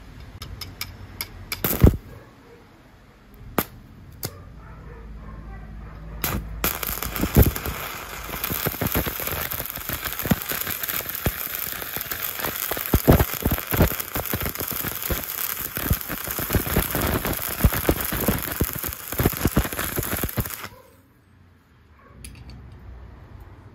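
Stick (MMA) welding arc at 70 amps with a 3 mm electrode on a steel strip. A few sharp separate cracks as the arc is struck, then about fourteen seconds of steady crackling hiss as the bead is laid, cutting off suddenly near the end when the arc is broken.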